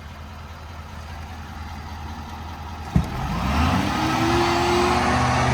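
Ford F550's 6.7-litre Power Stroke V8 diesel idling low, then a sharp click about three seconds in, after which the engine speed rises over a second or so and holds at a higher steady speed: the truck revving up to run its VMAC engine-driven air compressor.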